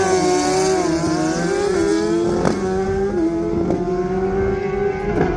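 Drag-racing motorcycle engine held at high revs, its pitch fairly steady with slight wavers, with a couple of sharp cracks.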